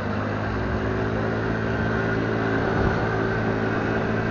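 Motorbike engine running at a steady speed while riding, its hum holding an even pitch over a rush of road and wind noise.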